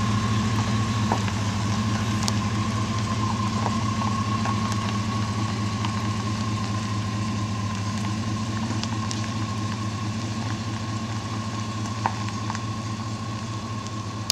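Full-size SUV's engine idling as it backs a boat trailer slowly down a gravel ramp: a steady low hum with a thin steady whine above it, growing slightly quieter as the vehicle moves away.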